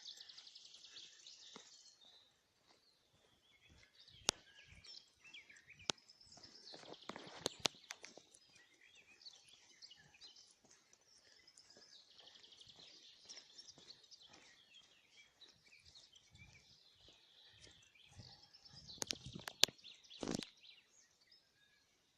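Songbirds singing, a steady chorus of small chirps and trills. A few sharp clicks or knocks break in now and then, the loudest cluster near the end.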